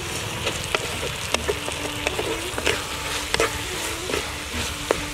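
Brinjal, onion and tomato sizzling in oil in a clay pot as a wooden spatula stirs them, with sharp knocks and scrapes of the spatula against the pot.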